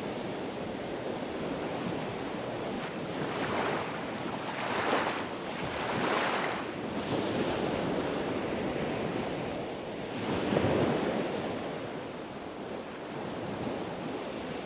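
Ocean surf: a steady rushing of waves that swells several times as waves break.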